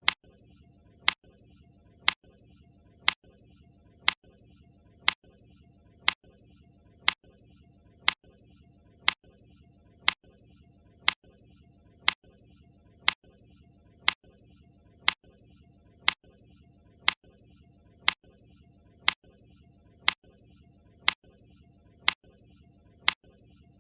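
Countdown-timer tick sound effect: a sharp, clock-like tick once a second, steady and even, over a faint background hum.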